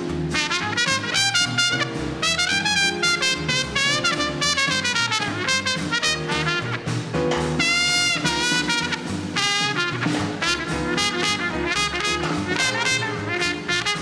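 Small-group swing band playing live, a trumpet carrying the line with slides and bent notes over piano and upright bass, and a long held note with vibrato just past the middle.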